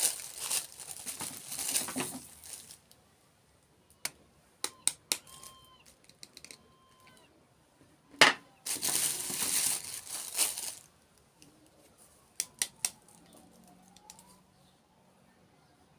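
Packaging crinkling in two longer stretches, with a few sharp clicks in the quieter gaps between.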